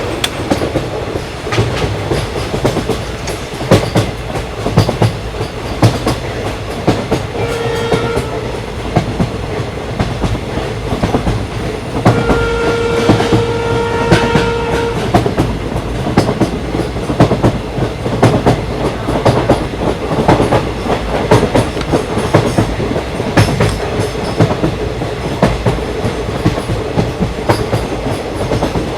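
A train running over a bridge, its wheels clattering over the rail joints. The horn sounds twice: a short blast about eight seconds in, then a longer one of about three seconds a few seconds later.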